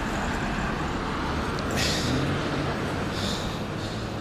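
Street traffic noise: a steady hum of vehicles on the road, with a brief rise in hiss about two seconds in.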